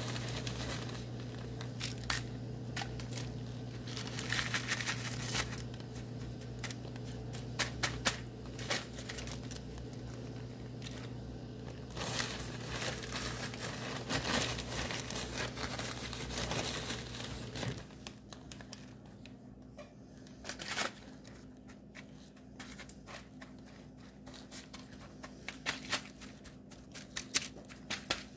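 Crackly rustling of dry cracker-and-Parmesan crumbs and the crinkling aluminium foil lining of a baking pan as the topping is pressed and spread by hand, in many short irregular bursts. A low steady hum underneath stops about two-thirds of the way through.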